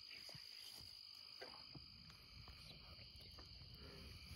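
Near silence apart from a steady, high-pitched chorus of night insects, with a few faint soft clicks.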